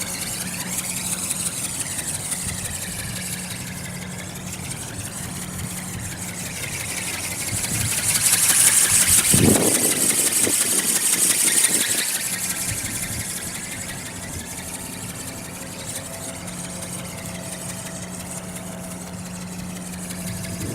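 Small RC ornithopter's geared brushless motor running in flight, a steady whir over a rushing noise that swells and fades, loudest in the middle.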